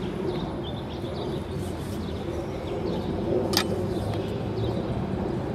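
Outdoor ambience: a steady low background rumble with small birds chirping on and off, and a single sharp click about three and a half seconds in.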